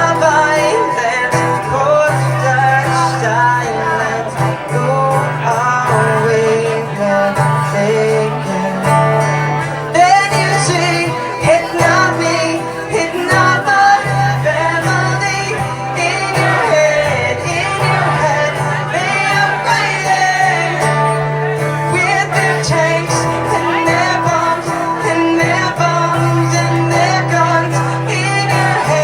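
A singer performing a song live with guitar accompaniment.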